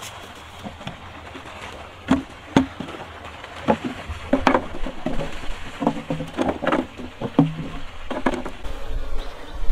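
Wooden hive frames and box parts knocking and clattering as they are lifted out of a wooden beehive box: a run of irregular knocks starting about two seconds in and stopping shortly before the end.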